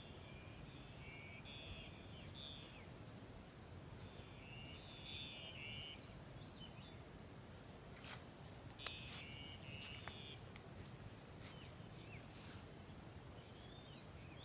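Quiet pasture ambience: small birds chirping in short repeated trills over a low steady rumble. A little past the middle, two sharp crisp snaps from water buffalo cropping grass.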